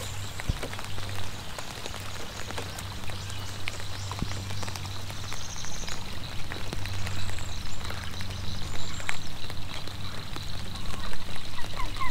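Rain falling on the water and the boat, heard as a steady hiss with many small drop ticks, over a steady low hum.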